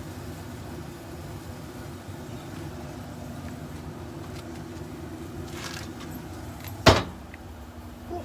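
A steady low mechanical hum, with one loud, sharp clack a little before seven seconds in and a softer knock near the end.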